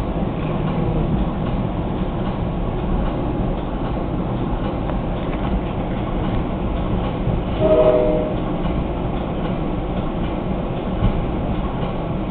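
Steady running rumble of a moving New Jersey Transit Comet V commuter coach, heard from inside the car, with the train's horn sounding one short blast about eight seconds in.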